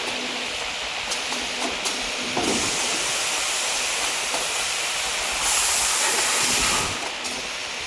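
Toilet-roll band saw cutting machine running with a steady mechanical hiss. A few light clicks come in the first couple of seconds, and a louder hiss swells from about halfway through and drops away shortly before the end.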